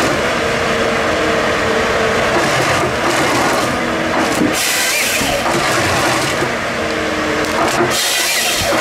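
Wheeled forest harvester running, its engine and hydraulics under load while the harvester head feeds and delimbs a felled tree stem. Steady machine sound with a few louder, noisier stretches of wood crackling and rasping, about halfway through and near the end.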